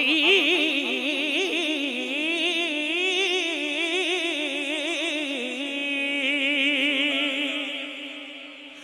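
A man's voice, amplified through a microphone, holding one long unaccompanied chanted note with a wide, wavering vibrato, fading out near the end.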